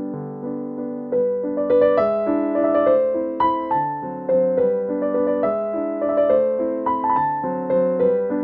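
Background piano music: a light melody of struck notes over chords.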